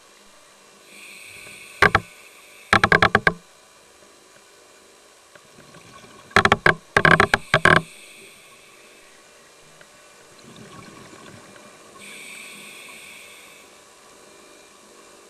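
Scuba diver breathing through a regulator underwater. A hissing inhale about a second in is followed by a loud bubbling rush of exhaled air, and a second bubble rush comes a few seconds later. Another hissing inhale comes near the end.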